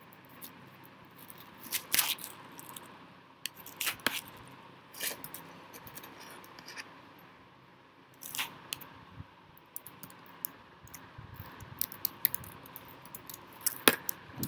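Computer keyboard typing with scattered key taps and clicks, turning into a denser run of quick taps near the end.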